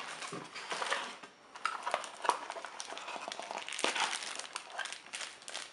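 Handling of cardboard packaging: a cardboard insert scraping and sliding out of its box, then a plastic bag around a power cord crinkling as it is gripped, in irregular rustles and small clicks.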